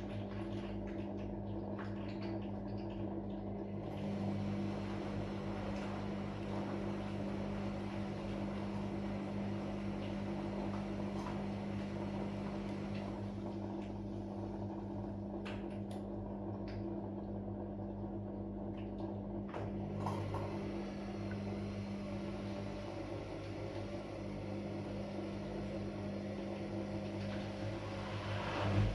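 Washing machine running with a steady motor hum, a low drone with a higher tone above it and a few faint clicks.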